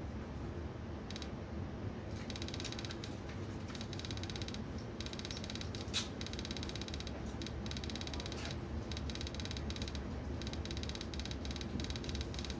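Steady low rumble of a Railjet passenger train in motion, heard from inside the carriage, with faint rapid ticking and creaking from about two seconds in and one sharp click midway.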